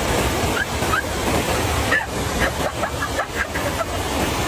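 Shallow stream rushing over rocks in a steady, loud wash, with a few short high chirps over it.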